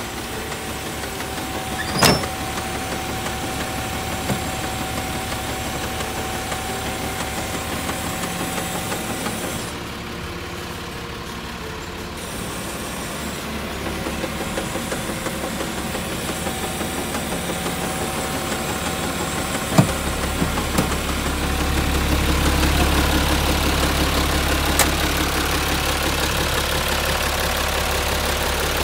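Isuzu Forward truck's diesel engine idling steadily, growing louder and deeper from about two-thirds of the way in, with a sharp click about two seconds in.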